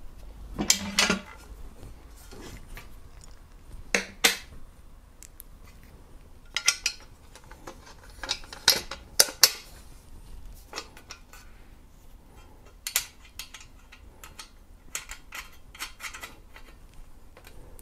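Metal TV-bracket plates and small screws clinking and knocking against each other and a wooden table as the screws are fitted by hand: irregular sharp clinks and clacks, several of them loud.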